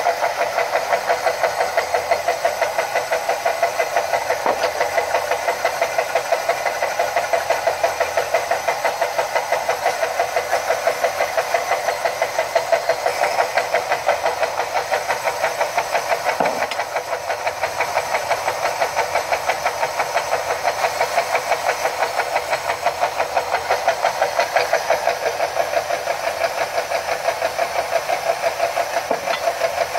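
Two Chicago Electric belt sanders running steadily, wet-sanding the cut rims of glass bottles held against their belts: a continuous grinding whir with a regular beat of about three pulses a second.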